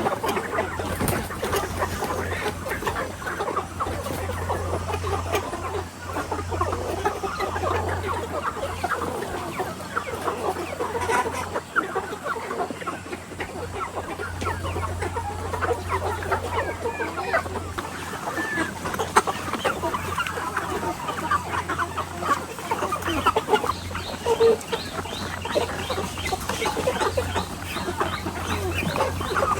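A flock of chickens clucking and calling, many short calls overlapping without a break, with a low hum coming and going underneath.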